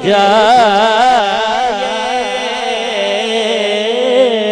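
A male naat reciter's amplified voice singing one long, ornamented held note that wavers quickly up and down in pitch, over a steady sustained tone beneath.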